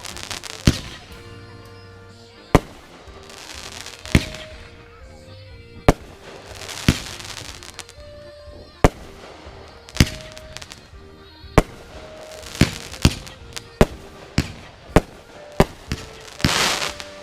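Fireworks going off: a string of sharp bangs, closer together in the second half, with bursts of hissing crackle between some of them. Music plays faintly underneath.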